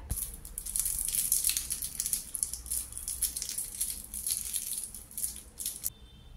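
Clear cellophane wrapper of a jelly sweet crinkling and crackling as fingers twist it open; the crackle stops abruptly near the end.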